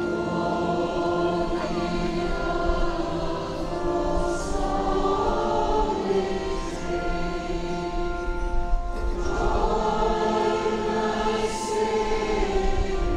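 A congregation of men and women singing a hymn together, holding long notes that change every second or so.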